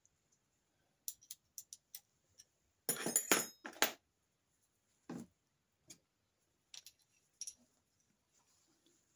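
Metal hand tools and parts being handled on a workbench: scattered small metallic clicks and clinks, with a louder rattling clatter about three seconds in and a few single clicks after it.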